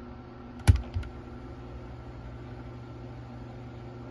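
Two sharp mechanical clicks a little under a second in, from the piano-key buttons of a Radio Shack CTP-92 cassette player being pressed, over a steady low hum and hiss.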